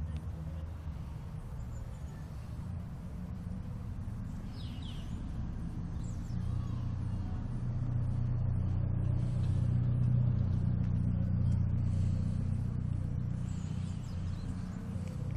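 Low, steady rumble of road traffic that grows louder in the middle and then eases off.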